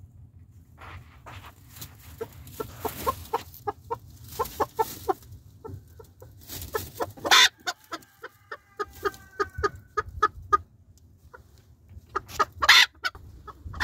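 A small flock of bantam chickens clucking in quick, short notes, with a longer drawn-out call in the middle and two louder sharp bursts, one midway and one near the end.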